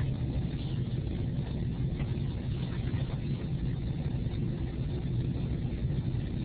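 Steady low background hum with a faint hiss, unchanging throughout: the recording's constant room or equipment noise.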